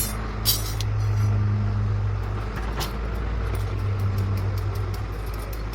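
A machine's engine running steadily, with a sharp knock about half a second in and scattered metallic clicks and knocks later.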